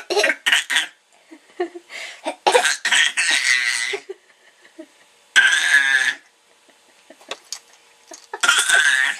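Small child fake-coughing on purpose: a quick run of short coughs at the start, then longer, high-pitched coughing bursts, three of them a few seconds apart.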